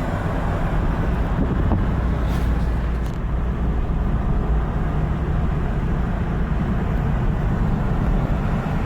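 Steady low rumble of a moving vehicle: continuous engine and travel noise with no distinct events.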